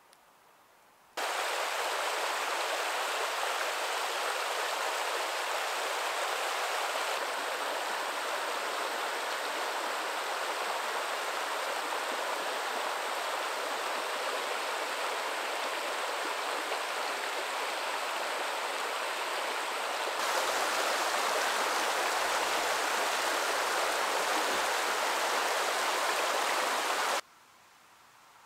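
Rushing water of a stream or rapids, a steady rush with no other sounds over it. It starts abruptly about a second in, changes character twice and cuts off just before the end, as three separate shots of the water.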